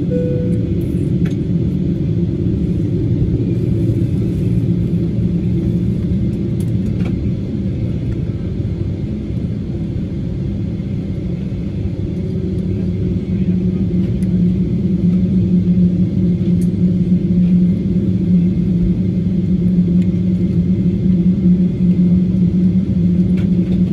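Boeing 777-200ER cabin noise heard from a window seat: a steady low drone with a strong hum from the engines at idle as the airliner taxis slowly onto its stand. It eases off slightly partway through, then builds again.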